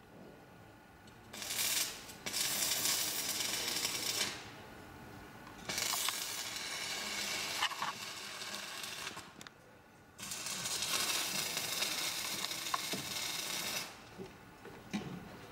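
Electric arc welding on a metal frame: three welding runs of about three to four seconds each, a steady hiss that starts and stops abruptly with the arc.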